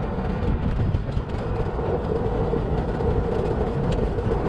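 A vehicle driving over a dirt and gravel road: a steady rumble of engine and tyres, with a few faint clicks of gravel.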